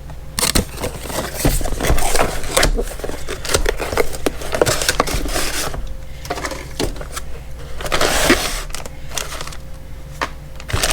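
Cardboard box and packaging being handled and unpacked: an irregular run of scrapes, rustles and small knocks.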